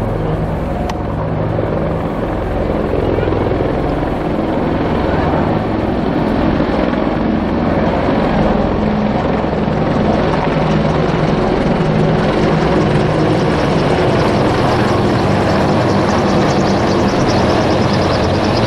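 A formation of five military helicopters flying overhead, a steady loud drone of rotors and engines. The rotor chop grows clearer and a little louder in the second half as the formation comes closer overhead.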